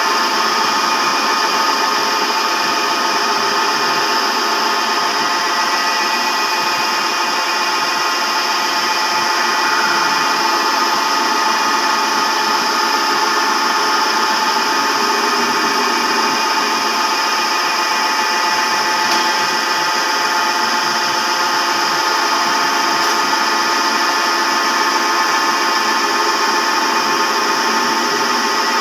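Manual metal lathe running steadily while cutting a thread, a constant machine noise with several steady whining tones.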